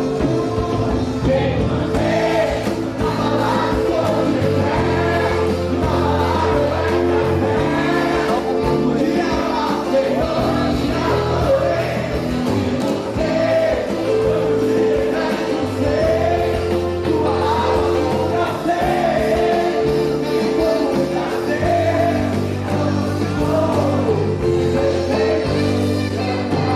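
Gospel song: singing over band accompaniment, with steady held chords and bass notes beneath the voice.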